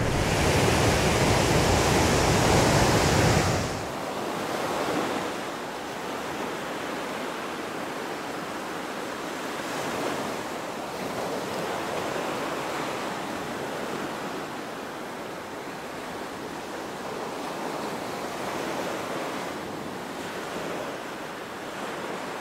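Ocean surf breaking and washing ashore. It is louder with a low rumble for the first few seconds, then drops suddenly to a softer, steady wash of waves that swells and fades every few seconds.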